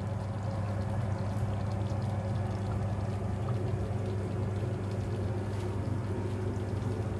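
Thick rice congee simmering in a stainless-steel pot, bubbling with scattered small pops, over a steady low hum.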